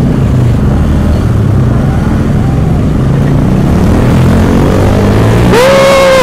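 Motorcycle engines running as a crowd of bikes rolls off at low speed, a dense steady rumble. Near the end a vehicle horn sounds once for well under a second, its pitch rising briefly and then held.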